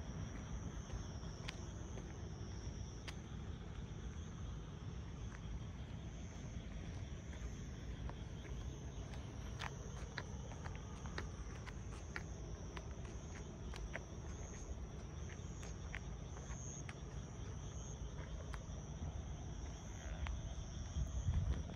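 Night insects chirring steadily in a high, wavering band, over a continuous low rumble, with scattered faint clicks; the rumble swells briefly near the end.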